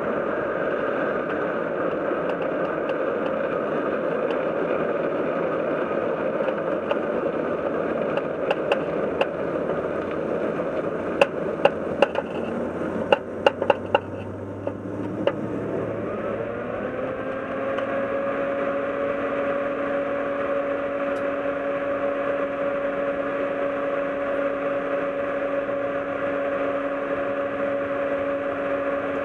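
Car heard from underneath: steady road and wind rush while it rolls along the track, with a cluster of sharp clicks around the middle. As the car comes to a stop, the rush gives way to the engine idling with a steady hum that rises slightly and then holds.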